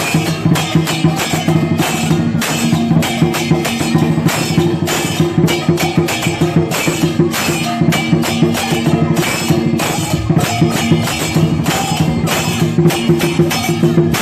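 Chinese drum-and-cymbal ensemble playing a fast, dense beat to accompany a dragon dance, with a low ringing tone held under the strikes.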